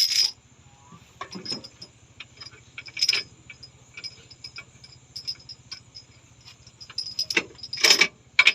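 Light metallic clinking and jangling, scattered irregular clinks with louder ones about three seconds in and again near the end, over a faint low steady hum.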